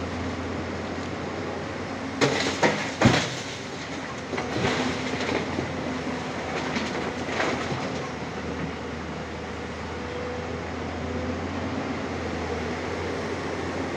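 Diesel engines of a Tata Hitachi excavator and a dump truck running steadily, broken by three loud clanks about two seconds in and lighter clattering around five and seven and a half seconds, the knocks of loading work.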